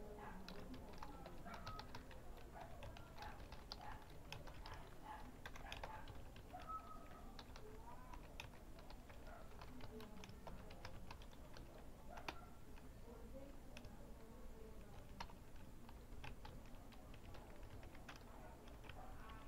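Typing on a computer keyboard: faint, quick, irregular key clicks as words are typed out.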